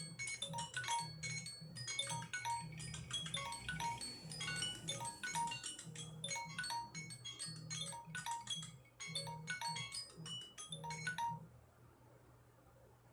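Samsung Galaxy phone alarm or timer alert tone: a fast melody of short, high chiming notes over a low pulsing hum, cutting off about eleven seconds in.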